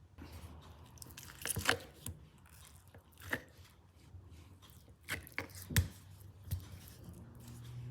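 Kitchen utensils handled during food preparation: about five separate knocks and scrapes, the loudest about a second and a half in and again near six seconds in, over a faint low hum.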